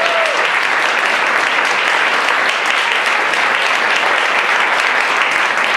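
Audience applauding steadily: dense, even hand clapping.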